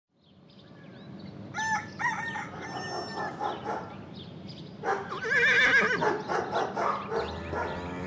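Farmyard fowl sounds fading in: short calls from chickens, then a rooster crowing loudly about five seconds in.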